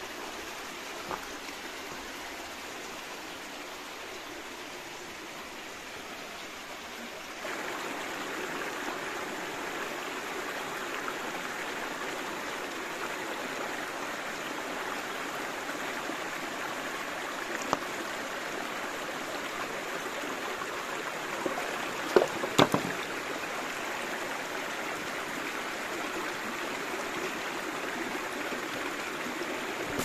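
Stream water flowing, a steady rushing that steps up in level about seven seconds in. A few sharp clicks or knocks come through it around the middle.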